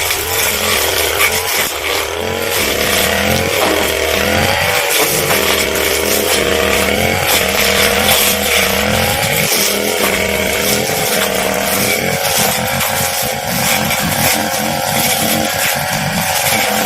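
Brush cutter engine running at high revs, its pitch wavering up and down as the blade meets load while cutting grass among palm fronds.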